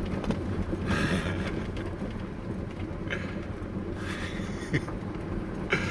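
A Toyota Prius driving slowly over a washboarded dirt road: tyres and suspension make a steady low rumble, with repeated knocks and rattles from the car as it shakes over the ruts.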